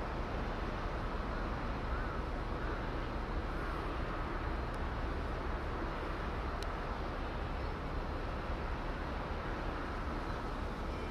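Steady outdoor background noise, a continuous rumbling hiss with no distinct events, and a few faint short high chirps in the first few seconds.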